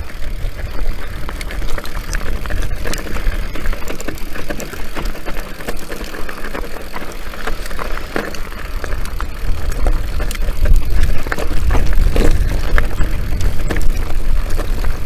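Orbea Rallon enduro mountain bike rolling down a rocky scree trail: tyres crunching over loose stones and the bike rattling, with many short clicks and knocks over a constant low rumble. It grows louder in the second half as the descent picks up.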